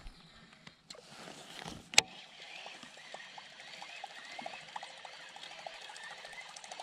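Faint water sounds and small irregular ticks around a kayak, with one sharp click about two seconds in.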